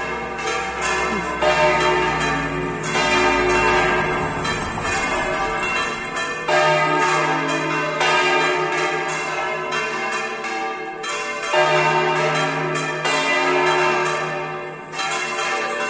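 Church bells swung full circle (volteo) in a bell tower, several bells striking in quick, overlapping succession with long ringing tones. A deeper bell comes in about every five seconds.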